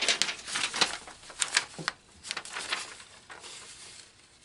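A scatter of small clicks and light rustling from handling objects on a workbench, busier in the first couple of seconds and dying down after about three seconds.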